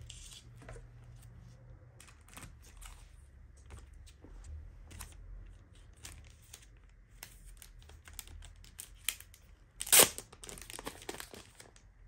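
Paper and card packaging being handled: soft rustles and small crinkles and taps as an envelope and cards are lifted from a box, with one louder, sharp crinkle about ten seconds in.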